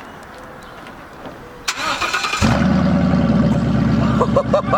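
Ford 5.0 V8 of a 2015 Mustang GT cranked over and firing up about two and a half seconds in, then running loudly with its exhaust open straight after the catalytic converters, no mufflers or pipes fitted.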